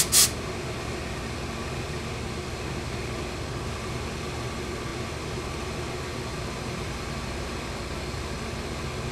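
Two quick hisses of steam from a tailor's steam iron right at the start, then a steady fan-like hum.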